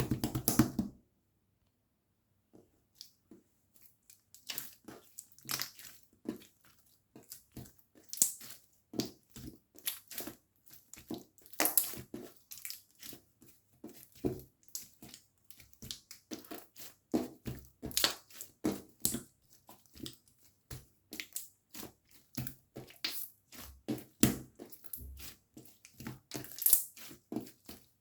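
Clear blue slime being squeezed and pressed by hand, making a dense, irregular run of small sharp pops and clicks. A louder burst of squishing ends about a second in, and after a short pause the popping runs on.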